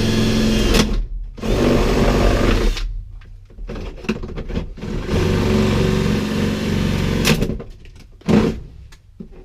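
Cordless drill running in several bursts as it bores a hole through a car's dashboard, stopping and restarting every second or two, with a last short burst near the end.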